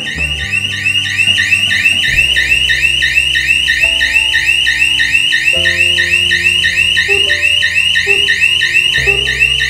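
Electronic siren of a shutter security alarm sounding loud, a fast, evenly repeating high-pitched warble of several pulses a second. It has been set off by the shop shutter being lifted.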